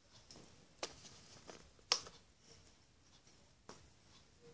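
Hands handling a cardboard DVD box set while taking off its plastic wrapping: faint rustling with three sharp clicks, the middle one loudest.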